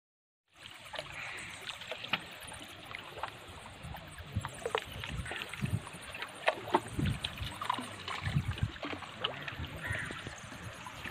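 Lake water lapping and splashing against shore rocks: a steady wash broken by many small irregular clicks and a few soft low thumps.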